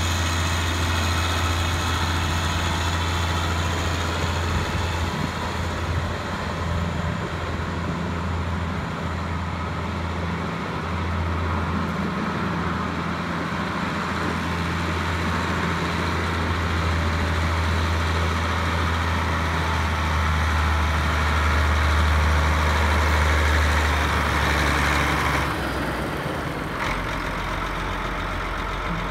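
1998 John Deere 9200 4WD tractor's diesel engine running, a steady deep drone. About 25 seconds in the low note drops away as the engine eases off, with a short click soon after.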